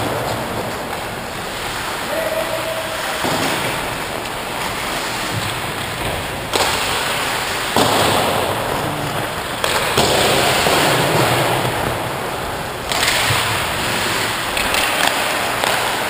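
Hockey skate blades scraping and carving the ice, with wind rushing over the microphone of a skating player's camera: a loud rushing noise that swells and falls several times.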